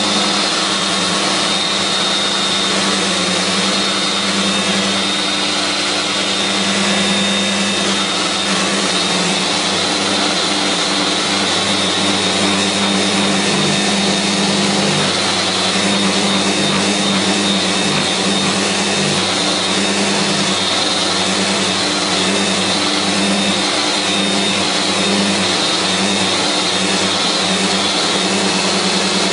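Festool Rotex RO 125 dual-action sander running in rotary disc mode with 80-grit paper on a hard pad, grinding down a rough hardwood surface, while the dust extractor draws through its hose at full suction. A steady high whine over a low hum, changing slightly as the sander is pushed across the wood.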